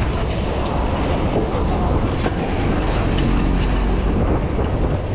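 Steady rumble of a city bus driving just ahead, mixed with wind and road noise from a bicycle riding close behind it.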